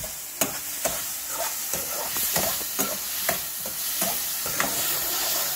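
Onions, peppers and olives sizzling in oil in a caldero while a metal spoon stirs them, with a steady hiss and repeated irregular scrapes and clinks of the spoon against the pot.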